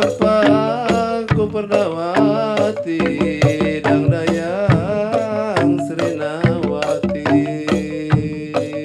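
Sundanese traditional music: a solo voice singing a wavering, ornamented melody over held instrumental tones and struck percussion, the strikes coming quicker and denser near the end.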